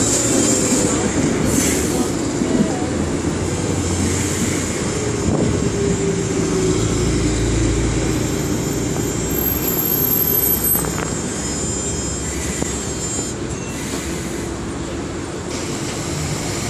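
Streetcar running on its rails, heard from inside: a steady rumble of wheels and motor, with a faint whine that slides in pitch during the first half.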